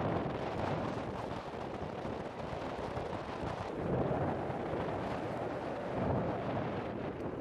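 Volcanic eruption with lava flowing: a continuous rough rumbling noise that swells about four seconds in and again around six seconds.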